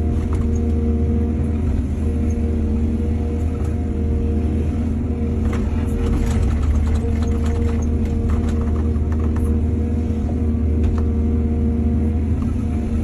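Heavy diesel engine of earthmoving machinery running steadily with a deep drone. About halfway through, a few seconds of scattered clattering knocks of metal or material.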